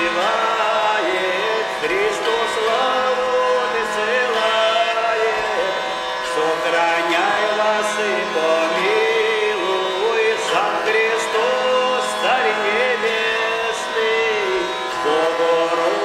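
A man singing a Russian spiritual verse (dukhovny stikh), a melody that bends up and down, over the steady drone of a wheel lyre (Russian hurdy-gurdy).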